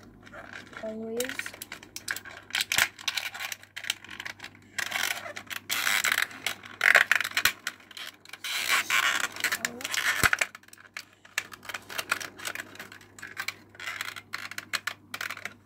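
Close-up handling of a boxed vinyl toy figure: a dense run of clicks, scrapes and crinkling, busiest in the middle.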